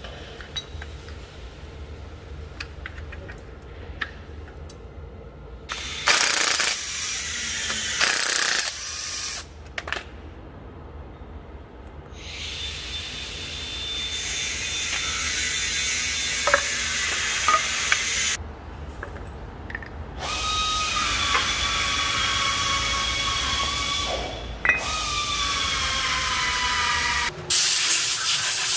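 Several long bursts of a hissing, whirring power tool over a steady low hum; during some bursts a whine falls in pitch as the tool runs.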